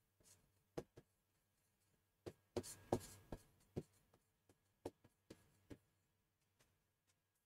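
A stylus tapping and scraping on an interactive smartboard screen as handwriting is put down: a string of sharp, irregular taps with a short scraping stroke about three seconds in.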